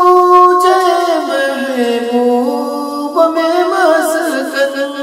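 A man singing an Urdu naat in a single unaccompanied voice, drawing out long held notes. The melody slides down about a second in, stays low, then climbs and wavers with ornamented turns near the end.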